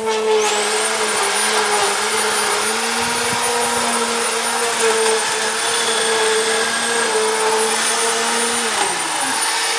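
Corded electric grass trimmer running steadily, its motor giving a high whine over the noise of the line cutting through long grass; the hum sags in pitch near the end.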